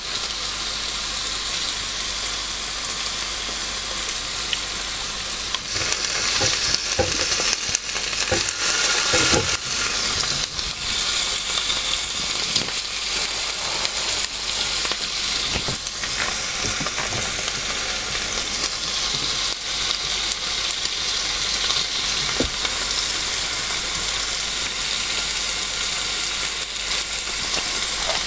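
Meat sizzling steadily on a round Korean barbecue grill plate over a portable stove, a continuous high, hissing sizzle. Scattered sharp clicks and knocks come through it, most of them between about six and ten seconds in.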